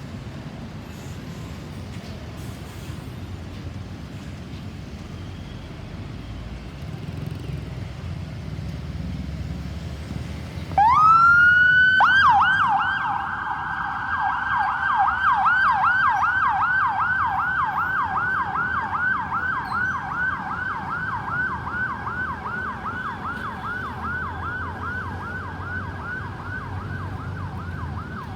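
Low road-traffic noise, then about eleven seconds in an ambulance's electronic siren starts with a rising wail and goes straight into a fast yelp of about three sweeps a second. The siren is loudest just after it starts and slowly fades toward the end, as the vehicle moves off.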